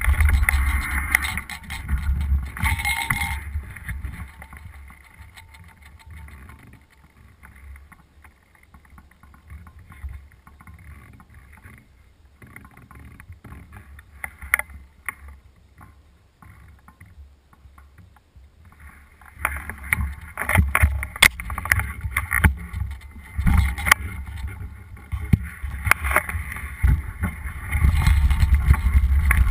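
Mountain bike ridden over a dirt trail: wind rush on the microphone with the bike rattling and knocking over the rough ground. It drops to a faint rustle for about fifteen seconds in the middle, then the clatter of knocks resumes and the wind rush builds again near the end.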